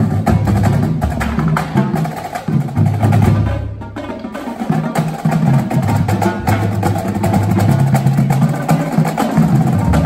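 Marching band playing loudly: saxophones and other horns sounding sustained chords over a drumline of bass drums and snares striking a driving beat.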